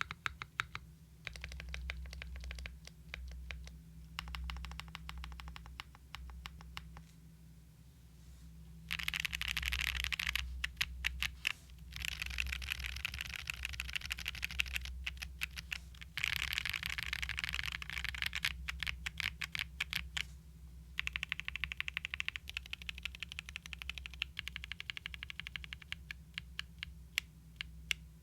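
Fast typing on a gasket-mounted QK65 mechanical keyboard with TTC Venus linear switches, a POM plate and Domikey ABS keycaps: rapid keystroke clacks in several bursts with short pauses, loudest through the middle stretch.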